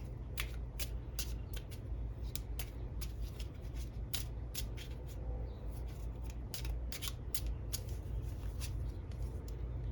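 Tarot cards being handled and shuffled: a run of light, sharp card clicks and taps, a few a second, over a steady low hum.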